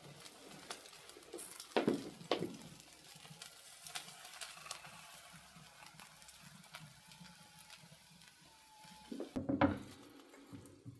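Wood fire crackling in a fireplace with a steady faint sizzle, with a spit-roasting chicken over it, and scattered fine pops. There are a couple of louder knocks about two seconds in and another clatter near the end.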